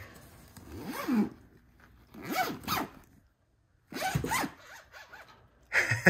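Budgerigar mimicking a zipper: four short rasping zip sounds, about a second and a half apart.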